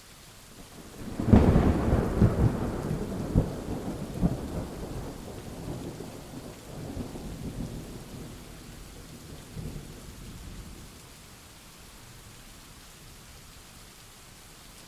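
Steady rain falling, with a thunderclap about a second in that cracks sharply and then rolls on in a long, low rumble with several further cracks. The rumble fades out over about ten seconds, leaving only the rain.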